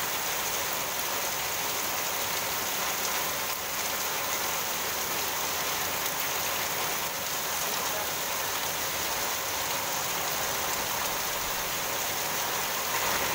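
Torrential rain falling on a wet street: a steady, even hiss of a heavy downpour.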